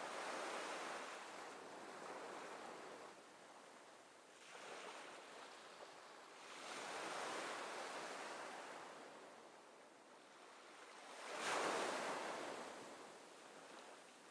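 Ocean waves washing in, a rush of noise that swells and fades every few seconds, strongest about twelve seconds in.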